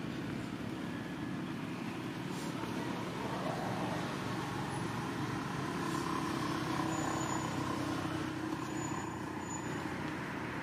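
Steady hum of a motor vehicle's engine running close by. It grows a little louder through the middle and eases off again near the end.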